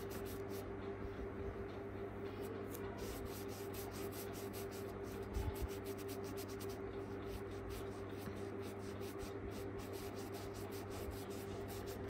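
Small flat paintbrush scrubbing acrylic paint into fabric stretched taut in an embroidery hoop: runs of short, scratchy strokes over a steady low hum.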